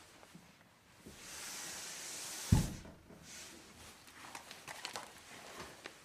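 Sliding sound effect: a rushing, hissing slide lasting about a second and a half that ends in a loud thump as the object hits its stop, followed by a few light clicks and rustles.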